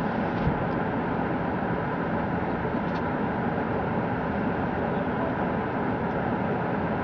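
Steady vehicle noise heard from inside a car, an even hum and rush of engine and road noise with a couple of faint ticks.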